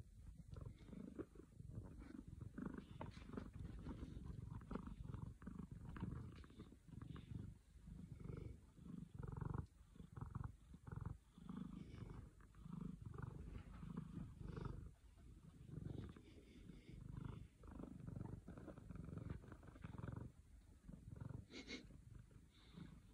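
Domestic cat purring close by while being stroked, a low purr that swells and fades in a steady cycle with each breath.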